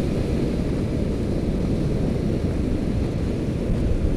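Steady low rumble of wind buffeting the microphone, over the wash of surf breaking on the shore.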